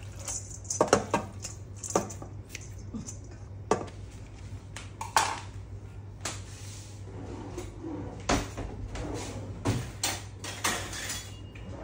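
Irregular clinks and knocks of metal cookware and utensils being handled, over a low steady hum.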